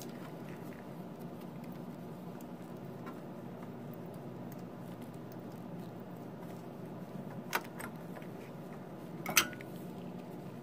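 Light clicks and knocks of a 12AX7 preamp tube being worked out of its socket in an Aguilar DB751 amp by gloved hands, the loudest knock about nine seconds in, over a steady low background noise.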